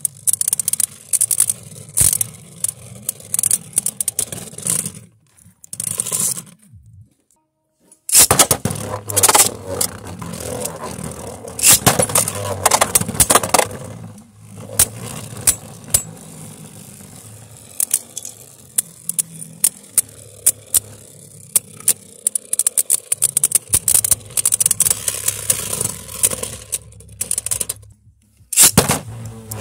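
Two Beyblade Burst spinning tops whirring and clashing on a plastic stadium floor: rapid sharp clicks and rattles from the collisions over a scraping whir. The sound drops out almost completely twice, about a quarter of the way in and again just before the end.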